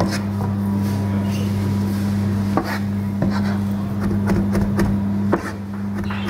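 A large two-handled curved mincing knife (zırh) chopping and rocking through lamb meat and fat on a cutting board, hand-mincing it for kebab: irregular dull knocks, about two a second. A steady low hum runs underneath.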